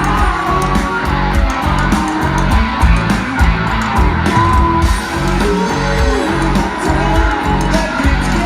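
Rock band playing live: electric guitars and a steady drum beat, with a singer's voice over them.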